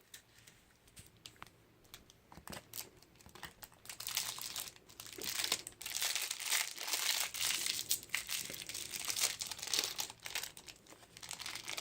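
Wrappers crinkling and tearing as chocolate surprise eggs and their contents are unwrapped by hand. It starts with scattered light crackles and becomes steady, busy crinkling from about four seconds in.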